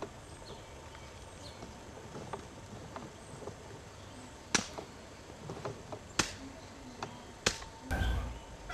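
Quiet open-air background with a few sharp clicks, three of them standing out about a second and a half apart, and a short low rumble near the end.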